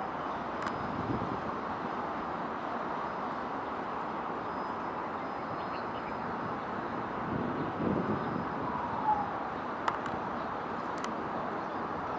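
Steady outdoor background noise at the waterfront, with a short low call about two-thirds of the way through, a brief falling whistle just after, and two sharp clicks near the end.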